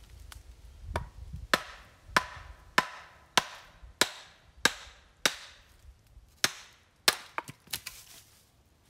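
A mallet pounding a blade down into a log on a chopping stump to split it: about a dozen sharp wooden knocks, roughly every 0.6 s, each with a short ringing tail, with a quicker flurry of strikes near the end.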